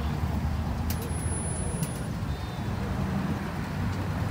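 Steady low hum of vehicle engines running, with road traffic noise around it; a couple of faint clicks about a second in.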